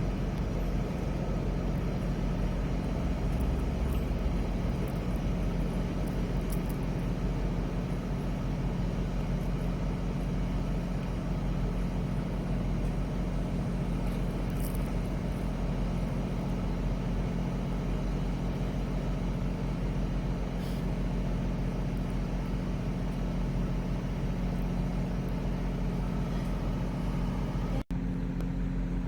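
Steady low hum of idling truck and car engines with even background noise. The sound drops out for an instant near the end.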